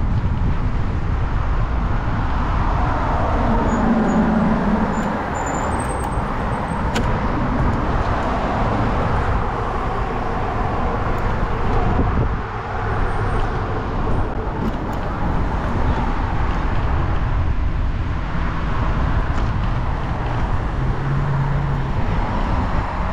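Steady road traffic noise, with a continuous low rumble and a wash of passing cars.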